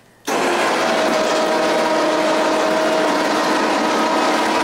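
ATV electric winch running steadily under load, winding in its cable to lift a Moose RM5 snow plow blade; a steady mechanical whine that starts suddenly a moment in.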